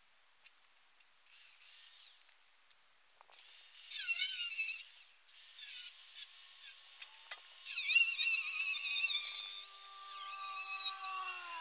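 Angle grinder grinding on a steel sheet: a few short bursts, then from about four seconds a continuous high screech over the motor's steady whine, which begins to fall in pitch near the end.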